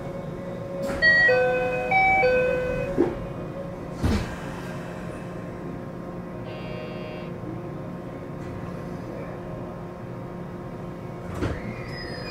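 Door-closing chime of a 521 series electric train, a few stepped notes, followed by two thumps about three and four seconds in as the doors shut. A steady hum runs under it, and a short falling whine comes near the end.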